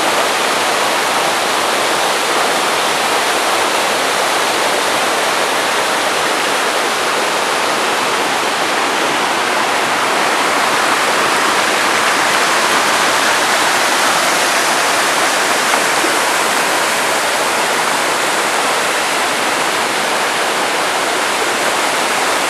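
Waterfall crashing steadily: a loud, even rush of falling water with no breaks.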